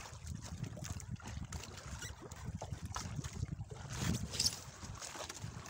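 Wind on the microphone and water lapping against a small fishing boat's hull at sea, with scattered light knocks and a brief splash-like hiss about four and a half seconds in.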